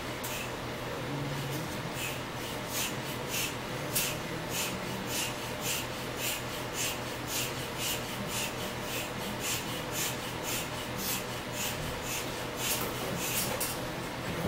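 Small hand-held air pump worked in quick strokes, pushing air through a hose into an exercise ball: a rhythmic puffing hiss about three times a second.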